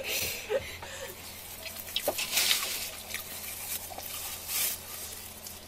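Someone eating: scattered small wet clicks and smacks of chewing, with a couple of brief hissy bursts partway through.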